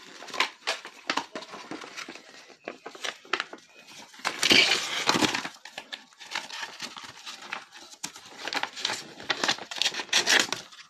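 Paper crinkling and rustling as a small folded poster is handled and opened out, in many short crackles with a louder, longer rustle about four seconds in.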